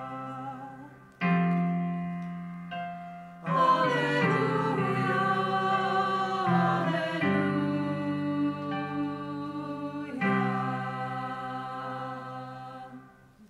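Slow worship music of held chords, each new chord coming in sharply and then slowly fading: about a second in, at about three and a half seconds, and about ten seconds in. The music dies away near the end.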